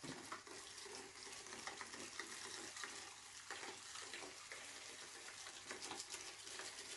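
Faint fizzing and trickling of soapy water with scattered light clicks, as a spool of nylon reel line turns in a bucket of water while the line is wound off it onto a fishing reel.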